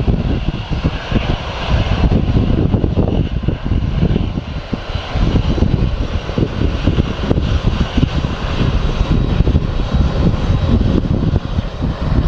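Twin jet engines of a Boeing 767-300ER running at low thrust as the airliner taxis slowly along the runway: a steady loud rumble with a high whine over it.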